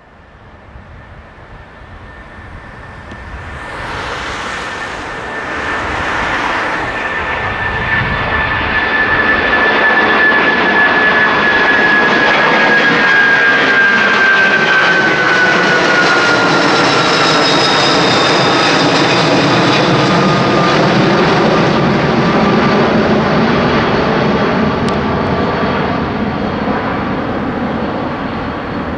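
Boeing 747-400F freighter's four Rolls-Royce RB211 turbofans at takeoff thrust as it climbs out overhead. The sound grows from faint to loud over the first ten seconds, then holds as a heavy rumble. A high fan whine drops in pitch as the jet passes overhead, and the rumble eases slightly near the end as it moves away.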